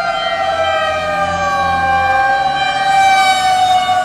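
Fire engine sirens approaching and passing: a steady siren tone with a second siren pitch that sinks and climbs back in the middle. Loudest about three seconds in as a ladder truck goes by close.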